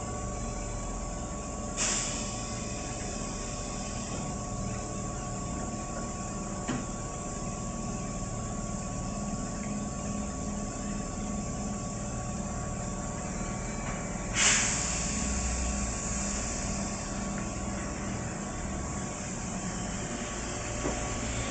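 A Keihan 2200 series electric train stands at the platform with a steady hum from its on-board machinery. It lets off two sharp bursts of compressed air, a short one about two seconds in and a louder, longer hiss about fourteen seconds in. It starts to move off near the end.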